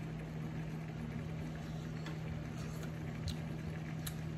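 Steady low electric hum of a portable countertop cooktop heating a simmering pan, with a few faint clicks.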